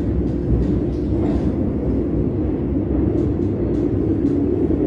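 Metro train running, heard from inside the carriage: a steady low rumble.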